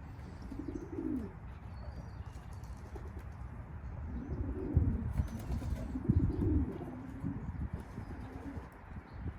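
Racing pigeons cooing, a short call about a second in and a louder run of cooing between about four and seven seconds, with wings flapping.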